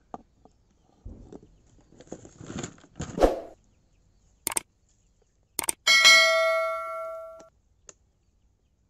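Subscribe-button sound effect: a couple of sharp mouse clicks, then a bell-like ding that rings out and fades over about a second and a half. Before it, a few faint rustles and a knock.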